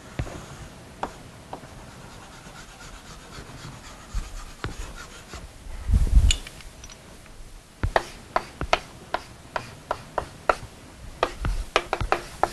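Chalk drawing on a blackboard: faint scraping strokes, then a quick run of sharp chalk taps and clicks from about eight seconds in. A dull thump comes about six seconds in.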